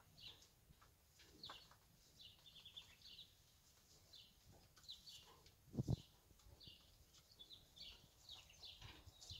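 Faint, scattered chirping of small birds, short high calls coming every second or so, with one dull thump about six seconds in.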